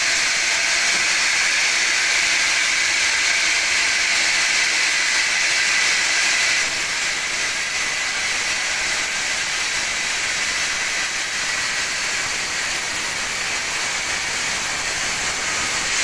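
Sawmill band saw blade ripping lengthwise through a teak cant, a loud steady hiss of cutting. About six and a half seconds in, the sound turns brighter and higher.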